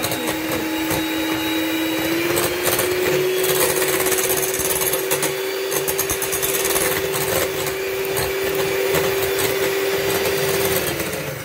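Electric mixer running steadily as it whips, with a rattly motor hum; its pitch steps up slightly about two seconds in and falls away as it is switched off near the end.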